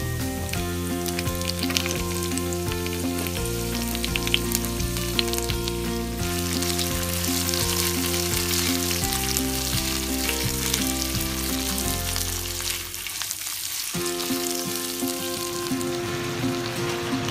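Sliced onions and garlic sizzling in hot oil in a pot while a spatula stirs them, the sizzle growing fuller from about six seconds in. Soft background music plays underneath.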